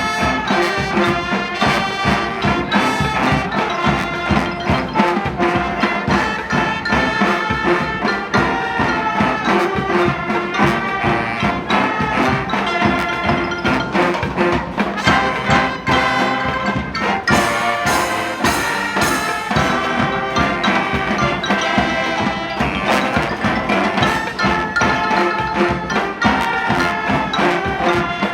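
A brass-and-percussion street band playing, with horns carrying the tune over a steady drum beat.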